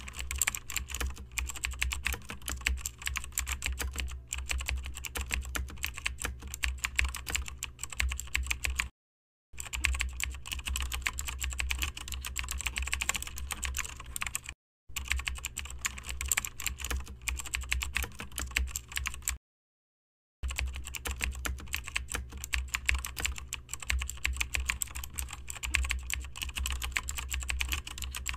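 Fast, continuous typing on a computer keyboard, many key clicks a second, broken by three brief dead-silent gaps.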